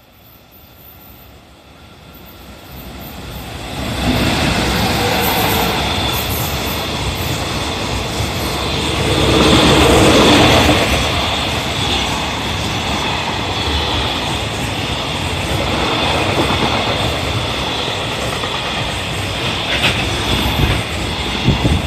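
Freight train hauled by an EF210 electric locomotive passing through at speed. It grows louder over the first four seconds as it approaches, then its container wagons' wheels run past in a steady loud rumble and clatter on the rails, loudest about ten seconds in.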